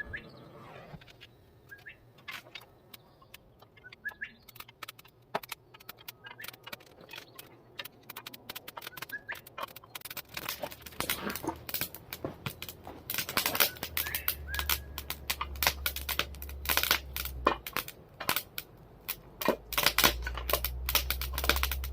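Burning coal crackling and popping as the fire catches in a homemade forge, the pops growing denser and louder. A low steady rumble comes in about halfway through.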